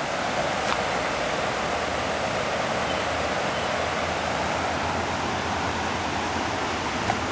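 A river rushing steadily, an even wash of flowing water, with a faint tick about a second in and another near the end.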